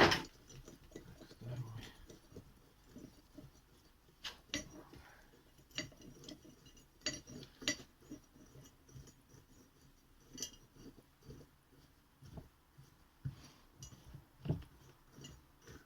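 Irregular metallic clinks and taps of hand tools on steel as the bolts are worked out of a VAZ-2115 steering rack.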